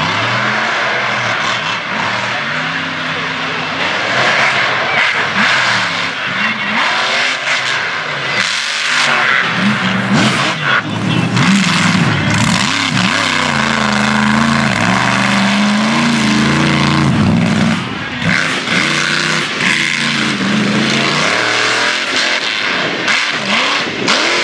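Mega truck's big engine revving hard and backing off again and again as it climbs and drops over dirt mounds on an obstacle course. The level dips briefly about three-quarters of the way through.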